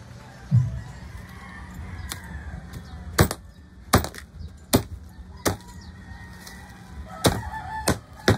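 Cleaver chopping through roast pork on a plastic cutting board: a series of about seven sharp chops, roughly one every three-quarters of a second, with a short pause after the middle.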